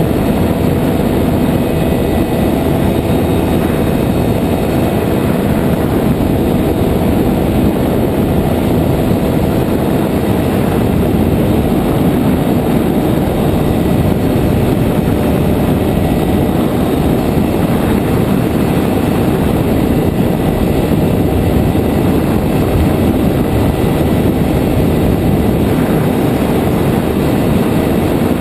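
A nano trike powered hang glider's JPX 320 engine and pusher propeller running steadily in cruise flight, an even drone with a dense rush of wind over the wing-mounted camera.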